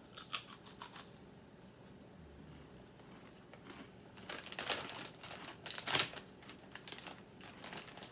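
Crunching of a light, crispy layered snack chip being bitten and chewed, with clusters of sharp crackles near the start and again around the middle.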